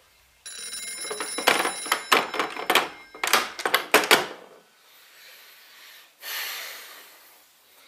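Black rotary-dial telephone's bell ringing in a loud, rapid trill, cutting off about four seconds in as the receiver is lifted to answer. A brief soft rustle follows near the end.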